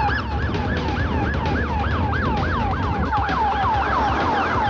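Police car siren on yelp, a rapid series of falling wails several times a second, partly overlapping as from more than one cruiser.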